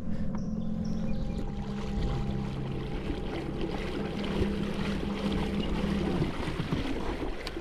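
Electric kayak motor running at a steady speed, its low hum carried over the rush of water along the hull as the kayak travels. The hum cuts off about six seconds in.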